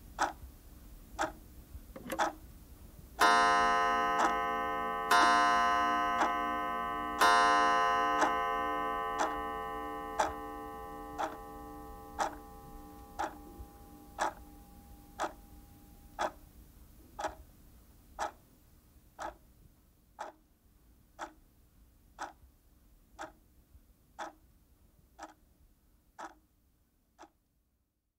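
Pendulum clock ticking steadily about once a second, striking its chime three times about two seconds apart a few seconds in, as for three o'clock; the ringing fades slowly over about ten seconds while the ticking goes on, and the ticking stops near the end.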